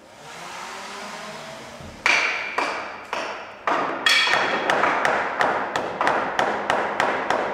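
A rising whoosh, then sharp ringing knocks that begin about two seconds in and quicken to about four a second: percussion in the film's soundtrack.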